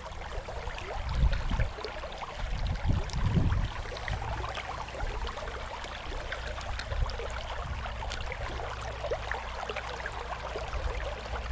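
Creek water running over rocks, a steady rushing hiss, with a few low thumps in the first few seconds.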